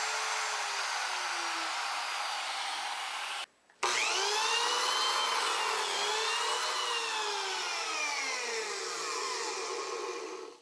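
Router with a 1/4 inch straight bit cutting a groove in plywood, its motor whine dipping and recovering in pitch as the bit loads up in the cut. There is a brief break about three and a half seconds in.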